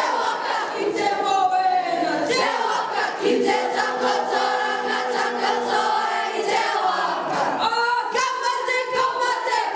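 A group of girls singing a Māori welcome song in unison, with long held notes and phrases that slide in pitch.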